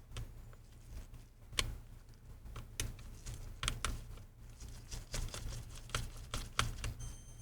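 Faint, irregular small clicks and taps of a T4 Torx precision screwdriver unscrewing the tiny hinge screws on a MacBook Pro.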